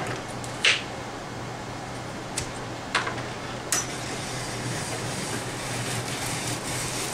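Hand-cranked apple peeler-corer: a few sharp clicks as the apple is set on its prongs, then from about four seconds in a steady hiss as the crank turns and the blade shaves the peel off the apple.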